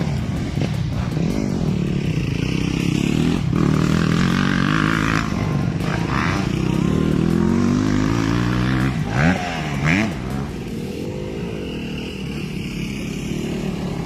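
Dirt bike engine revving, its pitch rising and falling repeatedly, with two quick sharp rev blips about nine and ten seconds in.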